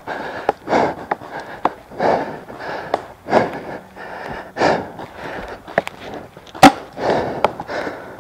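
Paintball player breathing hard close to the microphone, panting about once a second. A single sharp crack comes about three-quarters of the way through.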